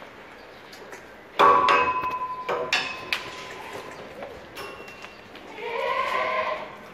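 A sudden metallic clang about a second and a half in that rings on for about a second, with a few more knocks after it, then one Boer goat bleat near the end.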